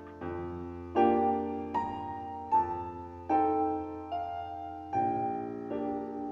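Solo piano music: chords struck about once a second, each dying away before the next.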